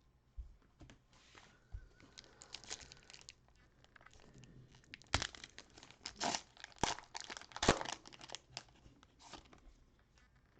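Cellophane wrapper of a basketball trading-card cello pack being torn open and crinkled, in a run of sharp crackles that get louder about five seconds in.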